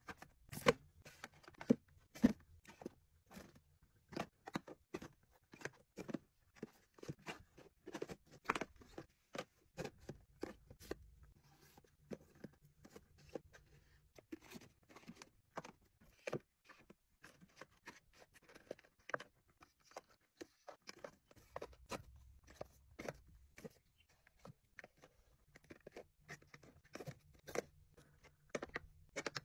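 Small cardboard skincare boxes and plastic bottles handled and set down on glass shelves: a steady run of irregular light taps and clicks, several a second.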